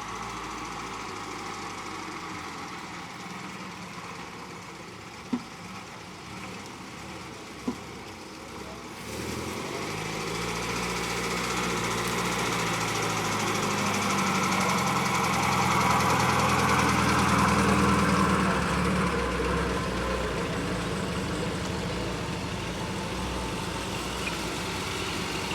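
A vehicle engine runs under load, building up about nine seconds in and rising in pitch, then easing back slightly and holding on. Two short sharp knocks come early on, before the engine builds.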